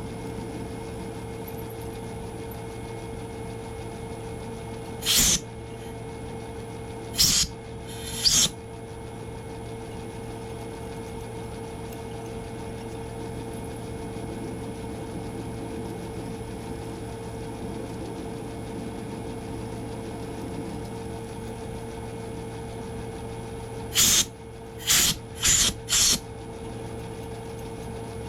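Myford metal lathe running steadily at low speed while a tailstock drill bores into the work, a constant motor hum. Seven short, loud noisy bursts cut in, three in quick succession about five to eight seconds in and four close together near the end.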